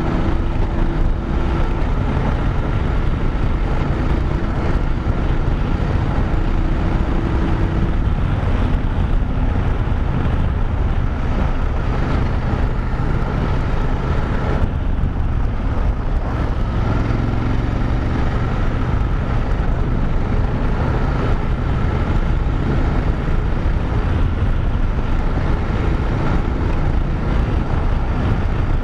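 BMW F850GS Adventure's parallel-twin engine running steadily in fifth gear at about 70 km/h on a dirt road, mixed with tyre noise on the loose surface and wind on the microphone. The sound dips briefly about halfway through, and the speed picks up toward the end.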